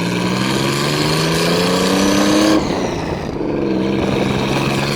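Nissan 300ZX's VG30ET turbocharged V6 pulling under acceleration, its note rising steadily for about two and a half seconds, then dropping abruptly and settling into a steadier, lower note.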